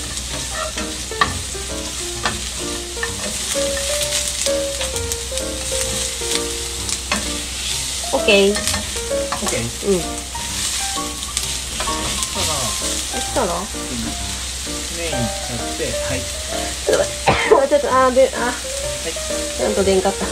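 Maitake mushrooms and garlic frying in olive oil in a frying pan over medium heat: a steady sizzle, with tongs clicking against the pan as the mushrooms are turned. A few short pitched gliding sounds come in over it in the second half.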